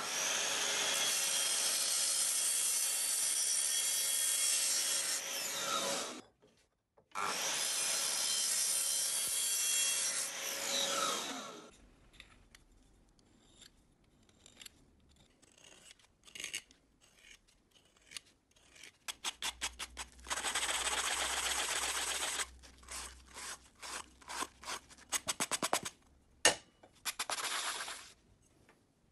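Miter saw cutting aluminium tube in two long passes, about six and four seconds. Then a hand deburring tool scrapes around the cut tube edge in quick repeated strokes, with a steadier scrape of about three seconds midway.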